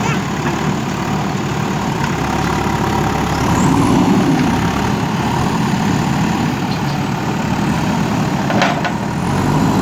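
JCB backhoe loader's diesel engine running steadily, swelling louder about four seconds in, with a short sharp knock near the end.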